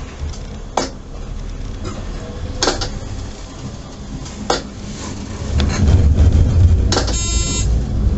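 Tram running on street track: a steady running noise whose low rumble builds from about halfway, cut by sharp metallic clacks about every two seconds. A short ringing metallic tone sounds about seven seconds in.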